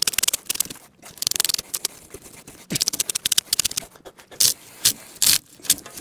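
Draw knife scraping thick red bark off a green ponderosa pine log in several crackly pulling strokes, with heavy breathing between them.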